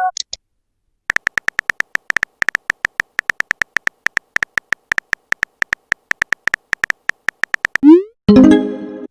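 Smartphone keyboard typing clicks, a fast even run of about eight taps a second lasting several seconds. Near the end comes a short rising swoosh and then a pitched chime, the text-message send and notification sounds of a chat.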